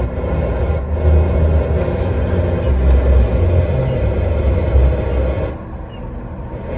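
Truck's FM radio playing through the cab speakers on a weak station, a loud, rumbling wash of static with little clear programme getting through. The poor reception comes with an inexpensive FM signal booster plugged into the antenna line.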